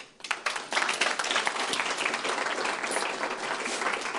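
Audience applauding, starting suddenly and continuing steadily.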